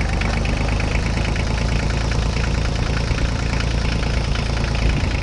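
An engine idling steadily, with a low rumble and a fast, even flutter.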